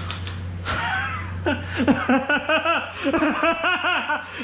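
A person laughing hard in a fast, rhythmic run of ha-ha-ha's that sets in about a second and a half in, after a few sharp clicks at the very start.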